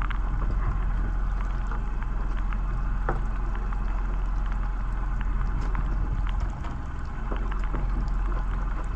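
A small fishing boat's engine running steadily at low speed, its note dipping briefly about two-thirds of the way through, with scattered sharp ticks of rain.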